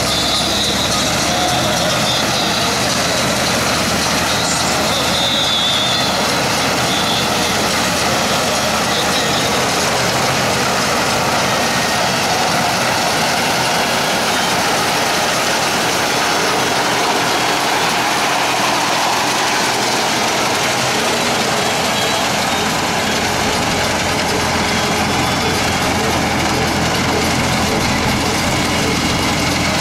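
Tractor engine running steadily under load as it drives a front-mounted reaper through standing wheat.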